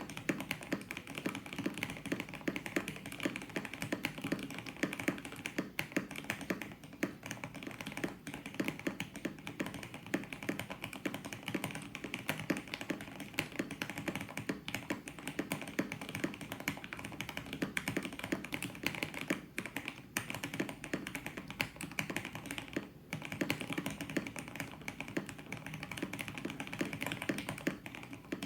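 Fast continuous typing on a mechanical keyboard with lubed and filmed Gateron Milky Yellow linear switches, foam-dampened case and PBT keycaps: a dense run of deep, muted clacks with brief pauses a few times.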